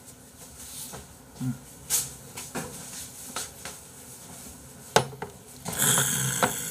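Ceramic bowls clinking and knocking on a wooden bed tray as it is carried in and set down on a desk. There are several sharp knocks, the loudest about five seconds in, and a rustling hiss near the end.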